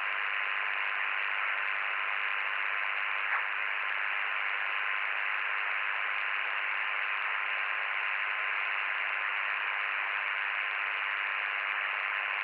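Receiver noise from a recorded VHF meteor-scatter reception: a steady radio hiss with a faint steady tone in it. About three seconds in it is broken by one very short ping of FSK441 signal, the brief reflection of a meteor trail.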